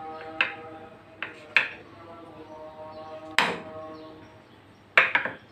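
Faint background music of held notes, with a few sharp knocks over it, the loudest about three and a half seconds in.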